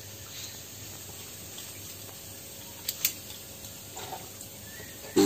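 Faint steady hum with two light clicks about three seconds in as a plug and cord are handled. Right at the end an electromagnetic diaphragm air pump for biofloc aeration switches on with a loud, steady hum.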